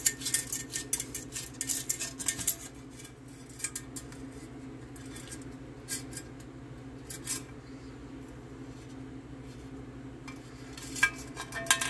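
Stainless steel canteen handled as its cap comes off: the cap's small metal chain rattles and clinks against the steel bottle. There is a quick run of clinks in the first couple of seconds, two lone clinks in the middle and another run near the end.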